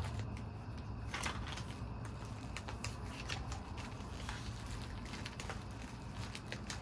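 Tape being pulled up off a monitor's foil cover: a string of small irregular crackles and clicks, the sharpest about a second in, over a steady low hum.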